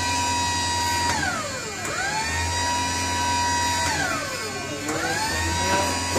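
An electric motor whining up to speed, holding a steady pitch, then winding down, three times in a row about every three seconds, with a low hum while it runs.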